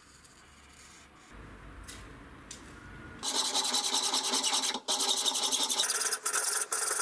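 A flat hand file filing the edge of a bronze plate clamped in a vise, starting about three seconds in. It makes repeated scratchy strokes with short breaks between them.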